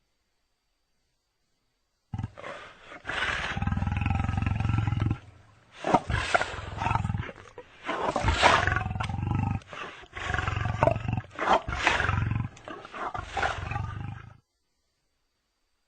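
Lion growls and roars used as sound effects, a string of about five long rumbling phrases with short gaps between them. They start about two seconds in and stop shortly before the end.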